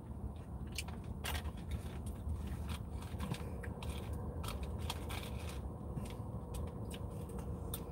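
Close-up eating of a salad: crunchy bites and scattered sharp clicks and scrapes of a plastic fork, over a low steady hum.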